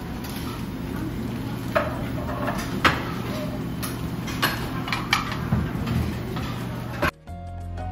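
Breakfast buffet room ambience: dishes and cutlery clinking several times over a steady low hum, with faint voices. Near the end it cuts off and soft background music begins.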